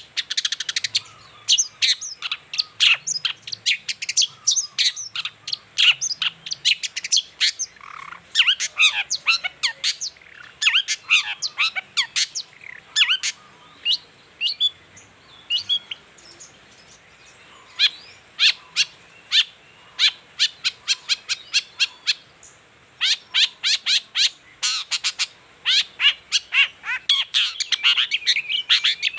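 Long-tailed shrike (cendet) singing: rapid runs of sharp, high chattering notes, with a lull of a few seconds in the middle.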